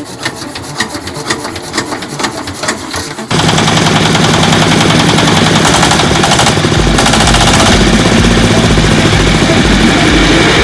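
ZS1115 single-cylinder diesel engine being hand-cranked, an even ticking that speeds up; about three seconds in it is running loudly with a fast, even beat.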